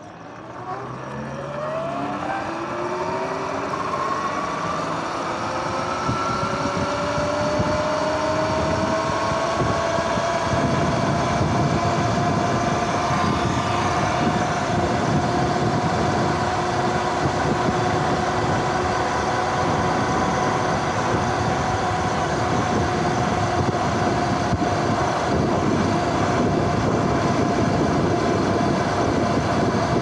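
Sur-Ron X electric dirt bike's motor and drivetrain whining, rising in pitch as the bike accelerates from a stop over the first several seconds, then holding a steady whine at cruising speed. A rough rush of wind and road noise runs beneath it.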